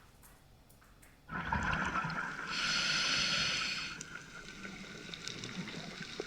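Scuba diver breathing through a regulator underwater: a bubbly exhale starts suddenly about a second in, followed by a loud hissing inhale. Faint clicking of reef fish runs underneath, with sharp ticks after the breath.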